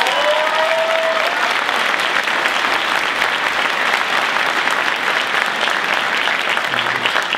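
Large audience applauding steadily, with one held call from the crowd rising over the clapping at the start.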